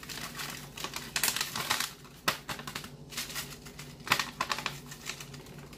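Plastic food pouch crinkling in irregular sharp clicks as it is shaken out and handled over the pot. It is loudest about a second in and again about four seconds in, over a faint steady low hum.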